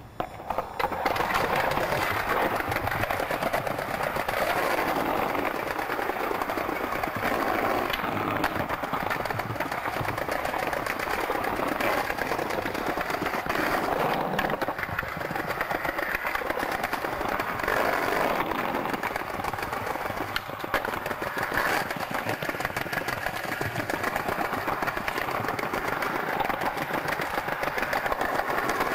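Skateboard wheels rolling over pavement slabs, a steady rumble broken by a few sharp knocks from the board.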